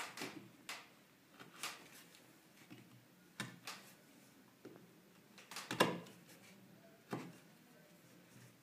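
A small hand-held carving tool scraping and cutting into a carved relief panel in about eight short, irregular strokes, the loudest about six seconds in.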